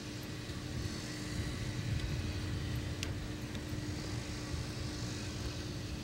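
Steady low outdoor rumble with a faint steady hum, and a light click about three seconds in.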